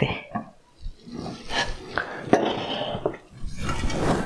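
Clay and ceramic kitchen bowls being handled and set down on a wooden counter: a few knocks and clinks, the first about a second and a half in and more over the next second or so.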